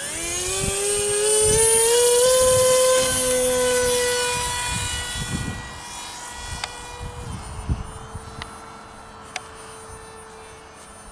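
Electric motor and propeller of an RC foam parkjet model of the Boeing ALCM winding up for a hand launch. It rises in pitch to a loud whine over the first two seconds, then holds a steady whine that fades as the plane flies away.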